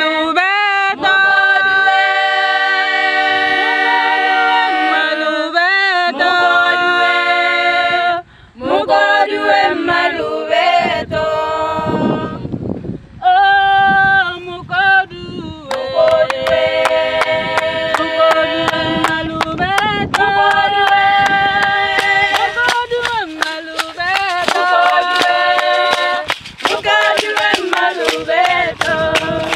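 A group of women singing a Setswana traditional song a cappella in several voices. About halfway through, steady rhythmic hand clapping joins the singing.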